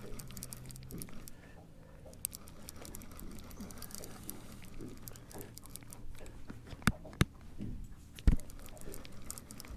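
Quiet handling of fishing tackle in a boat while a hooked catfish is reeled in: soft ticks and rustles, with three sharp knocks, two close together about seven seconds in and a louder one just after eight seconds.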